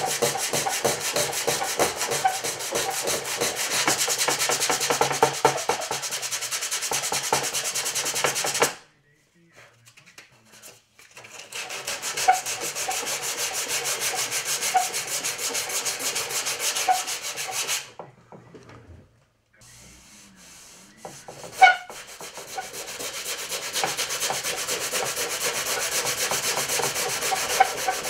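Sandpaper rubbed by hand over a white model ship part in rapid back-and-forth scraping strokes. The sanding stops twice for a second or two, and a single sharp knock comes about two-thirds of the way through.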